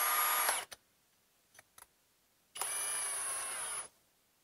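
Kobalt XTR brushless cordless drill run in two short bursts of about a second each, its motor giving a steady whine, as the keyless chuck is spun tight on a spade bit; a few faint clicks fall between the bursts.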